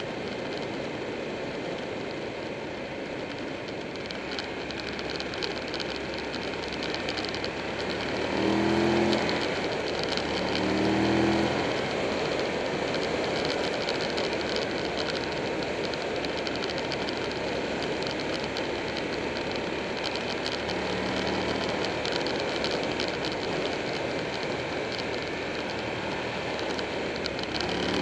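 Buell 1125R's V-twin engine under way, mostly buried under steady wind and road rush on the microphone. Its note rises through two short bursts of throttle about eight and eleven seconds in, and briefly again later.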